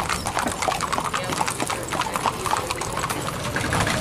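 Hooves of several horses walking on asphalt, an irregular overlapping clip-clop.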